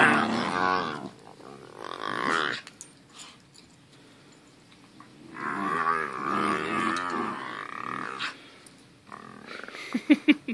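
Two dogs, a Great Dane puppy and a larger dog, growling at each other in play-fighting, in three long drawn-out growls, with a few quick short yaps near the end.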